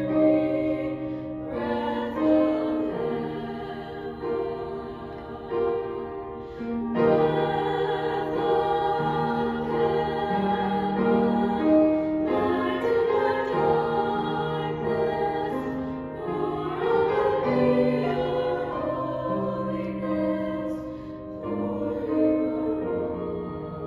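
Small choir of young female voices singing a slow song in harmony, holding long notes, with piano accompaniment.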